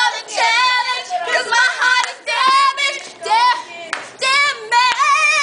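Several teenage girls singing loudly in high voices with wavering pitch, the words not clear, with a few hand claps between phrases.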